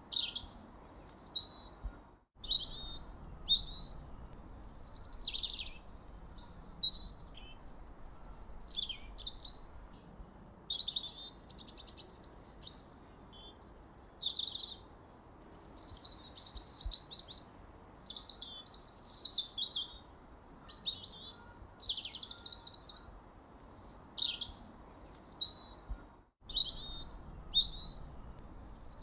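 Birdsong: a continuous run of varied high chirps, whistled phrases and trills, with two brief cuts to silence, about two seconds in and near the end.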